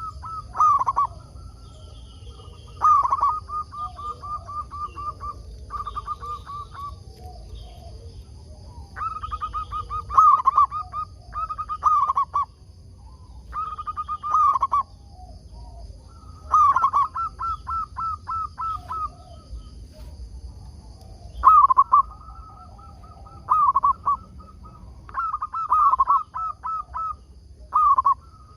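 Zebra dove (perkutut) cooing: phrases repeated every couple of seconds, each a loud opening note followed by a quick run of short, even coo notes.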